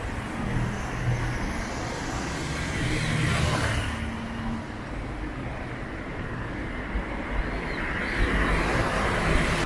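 Road traffic: cars passing close by on a city street. Their tyre and engine noise swells loudest about three seconds in and again near the end.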